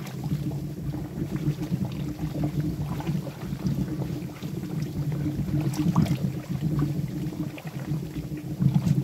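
Molten wax boiling in a dip tank around a wooden bee box: a steady low rumble with scattered small pops and crackles, as the moisture trapped in the wood steams out into the hot wax.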